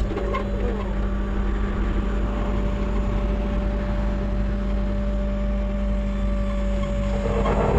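Truck engine running steadily with a constant drone and road noise.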